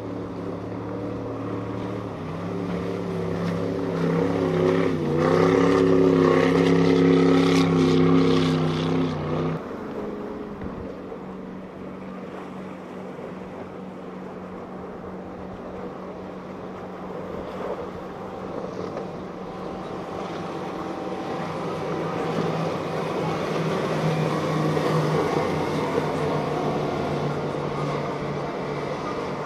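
Powerboat engines running at speed as boats pass close by, with the engine drone growing louder and then cutting off abruptly about ten seconds in. A second drone, from a center-console boat with four outboard motors, builds toward the end over the rush of water and wind.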